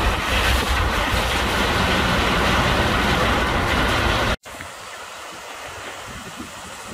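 Storm wind buffeting the phone's microphone in heavy rain, a loud, low, rumbling rush. It cuts off abruptly about four seconds in, giving way to a much quieter steady rushing of rain and floodwater.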